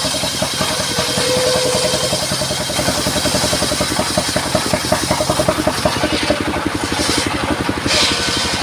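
Engine of a mobile circular sawmill running steadily, with a rapid, even firing beat.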